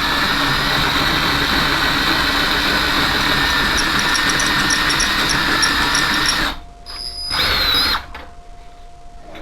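Handheld electric drill with a 16 mm bit boring out the back of a wheel-stud hole in a Ford Transit rear hub, enlarging it so studs with a larger shank will fit. It runs steadily, stops about six and a half seconds in, and gives one short burst about a second later.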